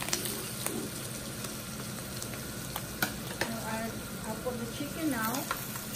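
Flour-dredged chicken frying in olive oil in a nonstick pan, with a steady sizzle. A few light clicks of metal tongs come near the start and about three seconds in.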